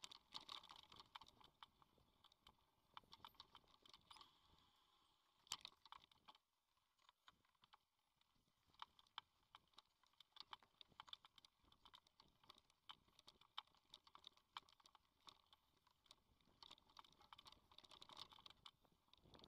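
Faint, irregular clicking and rattling of a mountain bike riding over a dirt singletrack, picked up by the camera mounted on the bike, easing off for a couple of seconds about six seconds in.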